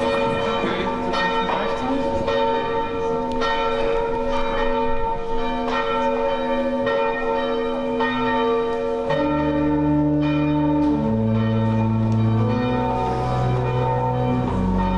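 Bell chimes struck in an even rhythm over sustained pitched tones; about nine seconds in, low bowed-string notes such as cello join and move step by step.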